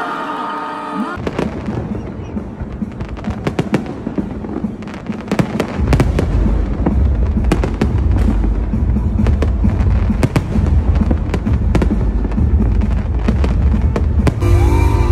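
Fireworks display going off: a rapid barrage of sharp bangs and crackles starting about a second in, joined about six seconds in by a continuous deep rumble of heavier bursts.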